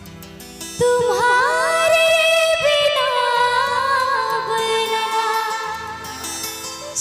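Ringtone music: after a soft opening, a loud melody with wavering, ornamented held notes comes in about a second in and slowly falls in pitch.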